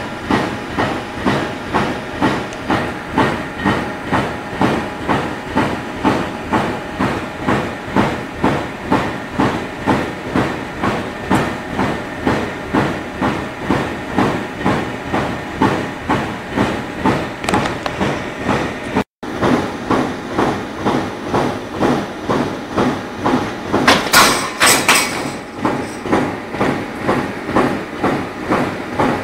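Hollow core chipboard press machine running with a steady rhythmic clatter, about two beats a second. About 24 seconds in, a louder hiss lasts around a second.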